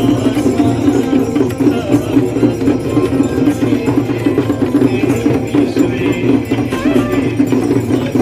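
Devotional aarti music for the Ganga Aarti ceremony, played with a steady rhythmic beat of percussion strikes.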